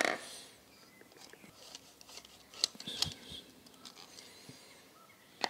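Small brass parts of a Weber 40DCOE carburettor being handled: a few light metallic clicks and rubs, bunched about halfway through, as the emulsion-tube and jet assembly is worked out of its well in the aluminium body.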